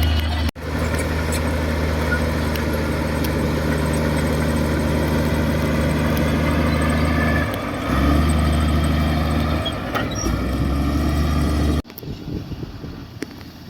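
Heavy earthmoving machine's diesel engine running with a steady low drone, briefly dipping about seven and a half seconds in. Near the end it cuts off abruptly, leaving a quieter uneven clatter.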